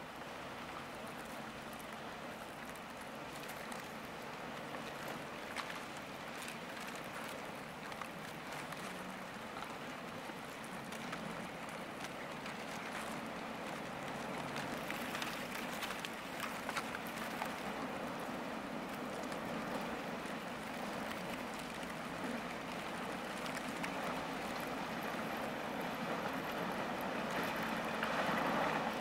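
Lake freighter Paul R. Tregurtha pushing through broken ice: a steady rushing, crackling noise with a faint low hum, growing slowly louder as the ship comes closer.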